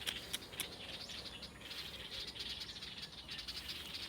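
Birds chirping, a quick twittering run of high calls, with a few sharp clicks in the first second.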